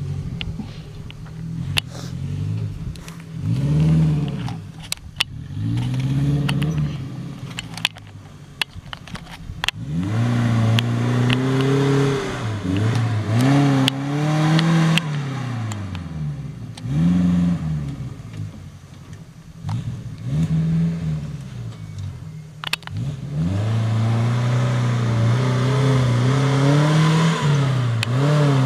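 Suzuki Jimny SJ410's 1.0-litre four-cylinder engine revved up and down again and again, with sharp clattering knocks through the first several seconds. From about two-thirds of the way in it is held at higher revs.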